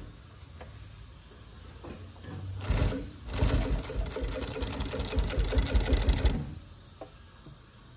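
Industrial long-arm sewing machine stitching a test piece: a fast run of needle strokes for about three and a half seconds, starting near three seconds in with a brief stop just after it starts. Before the run the motor gives a faint low hum.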